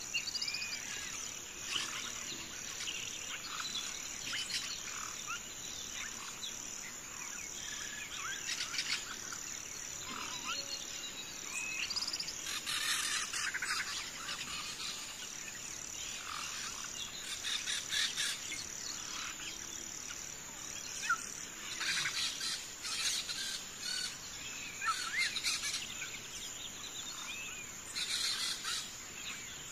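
Birds chirping and calling in short, scattered phrases over a steady high-pitched insect drone.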